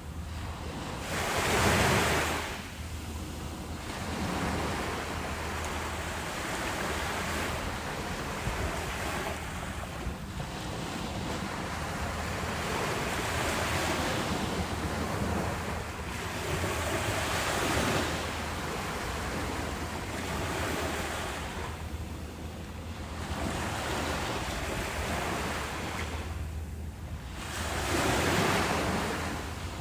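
Ocean waves breaking and washing up a beach, the surf swelling and falling away every few seconds, loudest about two seconds in and again near the end.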